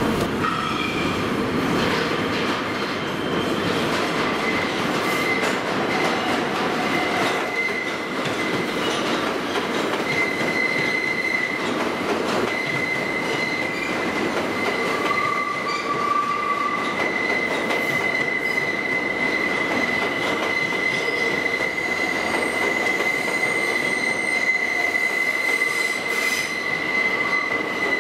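New York City subway train moving through an underground station: a steady rumble of wheels on rail. About ten seconds in a high, steady wheel squeal sets in and holds.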